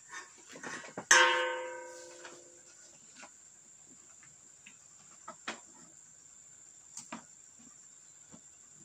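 A single sharp ringing note about a second in, like a plucked string, that dies away over about a second and a half. It is followed by a few faint clicks and knocks as the television is handled.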